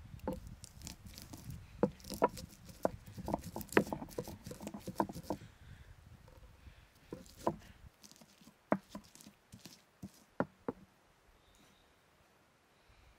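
Irregular light knocks and clicks, dense for the first five seconds or so, then a few scattered ones, over a low rumble that stops about eight seconds in.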